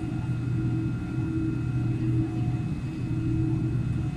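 Steady low mechanical hum heard from inside a Boeing 787's cabin during de-icing, holding a constant low tone with a rumble beneath it.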